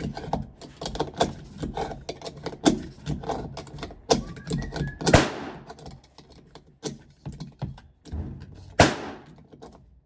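Two muffled pistol shots, each with a ringing echo, about five seconds and about nine seconds in. Before them come many irregular clicks and knocks of handling.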